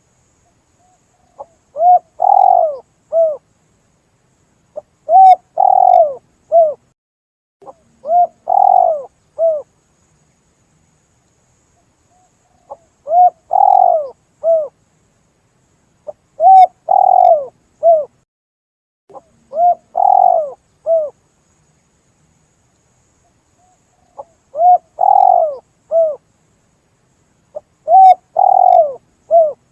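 Spotted dove (tekukur) cooing in a lure call: about eight repeated phrases of three or four coo notes, each phrase about two seconds long with short pauses between.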